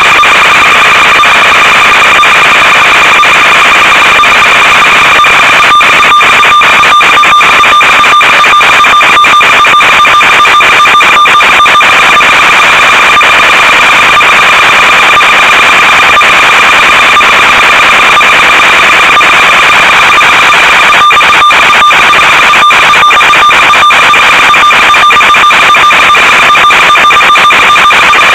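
Loud steady electronic buzz over static hiss from the audio channel of an analog FPV video downlink, with clusters of brief crackling breakups for several seconds about a quarter of the way in and again about three-quarters through.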